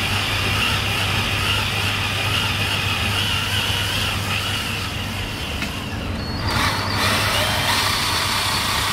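Scale air-cooled V12 model engine, 87 cc and running on methanol with nitromethane, running steadily on a test stand. The higher part of the sound changes briefly about six and a half seconds in.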